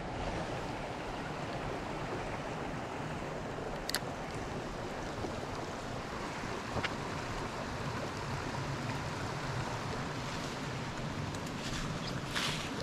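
Steady rush of a shallow mountain trout stream running over rocks, with a few short clicks about four and seven seconds in and near the end.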